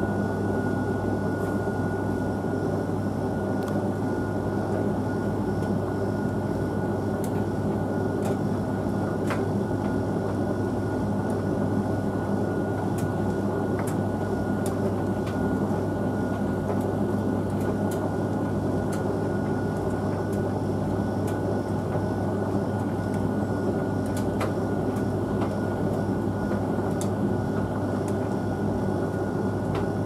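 Hoover VHV68C tumble dryer running: a steady low hum with a thin, constant high tone over it and faint scattered clicks.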